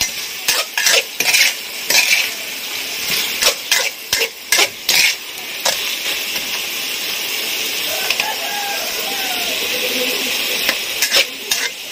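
Metal spatula scraping and clinking against a wok as a panful of green chafer beetles fries with lemongrass, over a steady sizzle. Stirring strokes come quickly in the first half; after about six seconds it is mostly the sizzle, and the stirring starts again near the end. The beetles are being fried until crisp.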